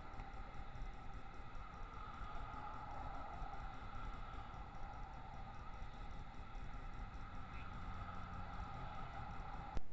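Trail camera recording: a steady two-tone hum with a low rumble beneath it, and a single sharp click near the end where the recording cuts off.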